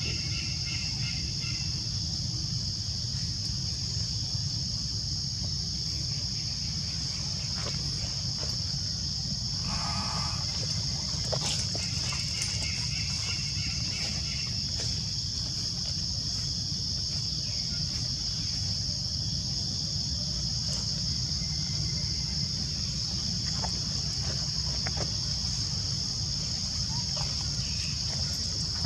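Steady high-pitched insect chorus droning without a break over a low, even background rumble, with a few faint short calls now and then.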